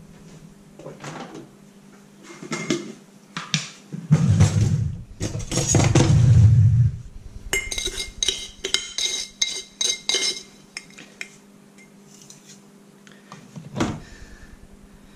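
Kitchen clatter: a few knocks, then dull thuds, then about three seconds of metal utensils clinking and ringing against each other. This is the cook fetching a sugar jar and a metal measuring cup.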